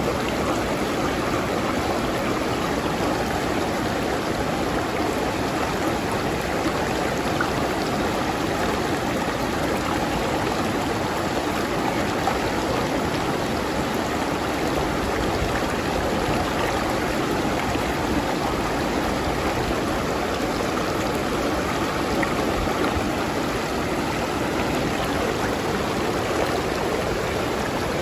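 River stream flowing over rocks, a steady rush of water.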